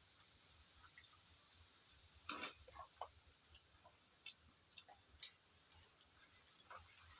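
Quiet, scattered small clicks and smacks of someone eating rice, dal and mashed potato by hand, with one louder short scrape or rustle a little over two seconds in.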